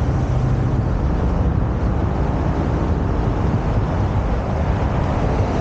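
Steady, even rumble of a ride on an electric beach wagon: wind buffeting the camera microphone over the wagon's running noise on the sand.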